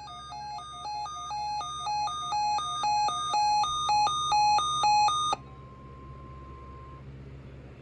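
Weather radio receiver's alert alarm: two tones alternating high and low, each held about half a second, getting louder step by step for about five seconds and then cutting off. A faint steady tone, the NOAA Weather Radio 1050 Hz alert tone, carries on for about a second and a half, signalling an incoming watch or warning broadcast.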